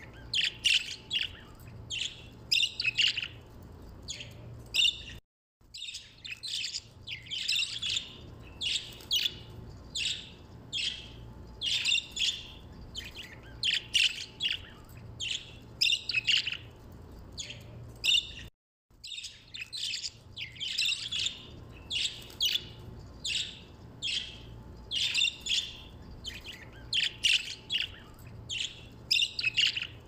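A flock of caged budgerigars chirping and chattering, a dense run of short high calls with no let-up. The sound cuts out completely for a moment twice.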